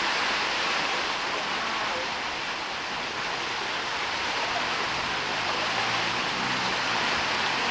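Steady hiss of heavy rain.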